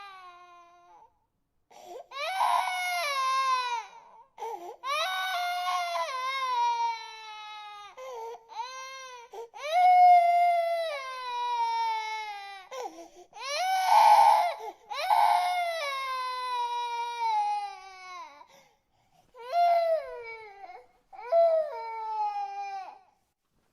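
Baby crying: a string of long wails, each sliding down in pitch, broken by short gasps for breath.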